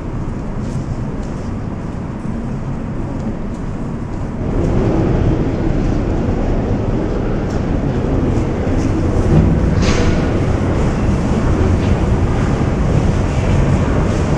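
Metro train running in a station tunnel, a steady low rumble that grows louder about four and a half seconds in. A short sharp noise sounds about ten seconds in.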